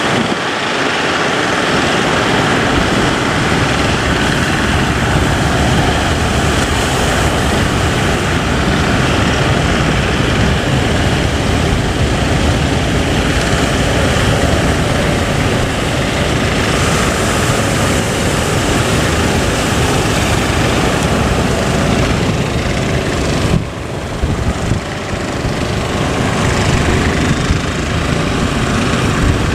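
Boat's engine running steadily under heavy wind and rushing water from the sea, the sound briefly dipping about three-quarters of the way through.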